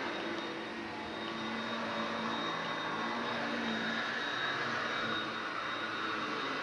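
A steady, distant engine drone.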